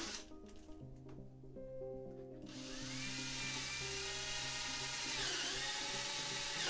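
Background music, then about two and a half seconds in an electric drill spins up and runs steadily, boring dowel holes with a 6 mm bit. Its whine dips in pitch briefly about five seconds in.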